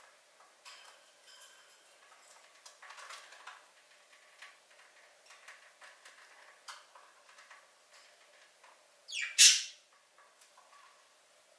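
Pet budgerigars chirping and chattering softly in their cage, with scattered light ticks, and one short, loud burst about nine seconds in.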